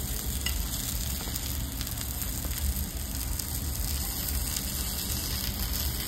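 Steady sizzling hiss of food frying in a restaurant kitchen, with a low steady hum underneath.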